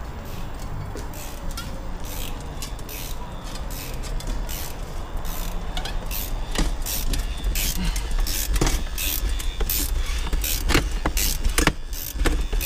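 Equalizer Raptor windshield cut-out tool being worked by hand, a run of sharp clicks and creaks that grows denser and louder over the second half as the cutting wire is wound in and drawn through the windshield urethane.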